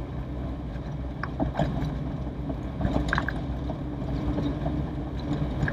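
A Toyota Corolla DX on the move, heard from inside the cabin: a steady low engine drone mixed with road noise, with a few faint short ticks about a second and three seconds in.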